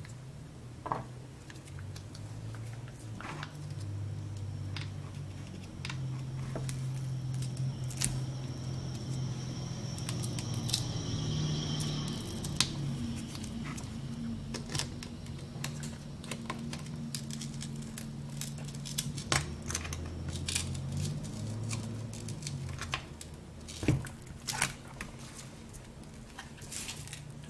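Scattered sharp clicks, taps and light scrapes of metal tweezers and pry tools against a cracked iPad 6 glass digitizer and its broken glass, as the digitizer is pried off. A low hum runs underneath.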